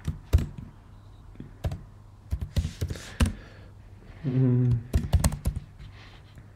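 Keystrokes on a computer keyboard: irregular clicks in short runs as a word is typed, with a short spoken word about four and a half seconds in.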